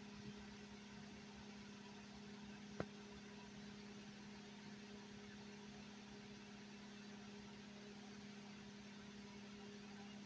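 Near silence with a steady low electrical hum and one sharp click about three seconds in.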